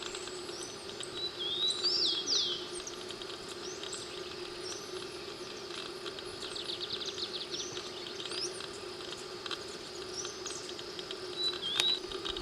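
Wild birds calling with short whistled and chirped notes, including a quick rapid trill midway, over a steady high insect hum and a low steady drone.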